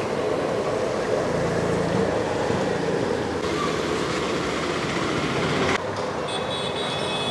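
Steady mix of street traffic and hot oil sizzling as aloo bara fry in a large iron kadai. The sound changes abruptly twice.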